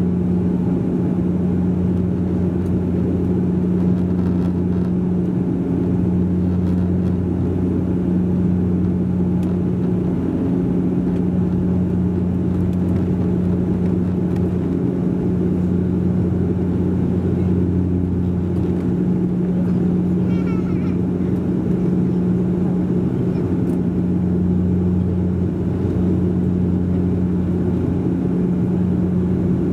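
Cabin of a Bombardier Q400 turboprop in its climb: the steady drone of its two Pratt & Whitney PW150A engines and six-bladed propellers, with a constant low hum.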